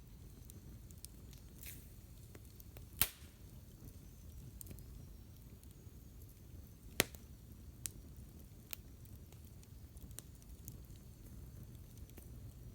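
Campfire crackling: a faint steady hiss of burning wood broken by scattered small snaps, with two sharp loud pops about three and seven seconds in.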